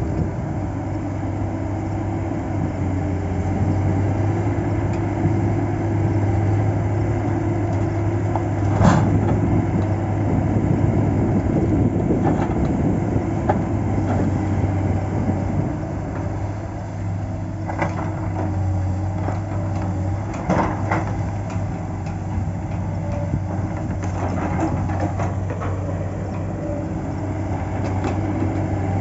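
Heavy diesel engine of a log-loading crane running steadily, working harder for several seconds early on, with a few sharp knocks and clanks as pine logs are handled onto the truck.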